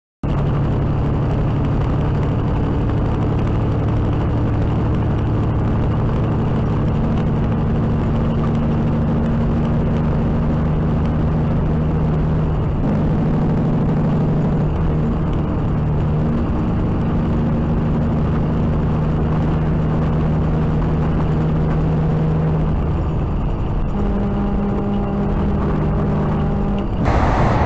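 A truck engine drones steadily at highway speed with road noise, heard from inside the cab. Near the end a louder rushing noise cuts in suddenly.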